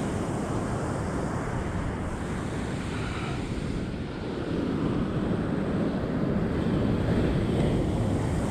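Ocean surf washing on the beach, with wind buffeting the microphone; the surf swells louder about halfway through.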